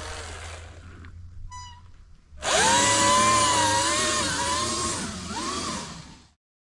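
Surron Light Bee X electric motor, in its 30 kW mode, whining under hard acceleration. An angry, high whine starts suddenly about two and a half seconds in, wavers in pitch as the throttle is worked, and cuts off abruptly near the end. Before it there is a rush of wind and tyre noise with one short whine blip.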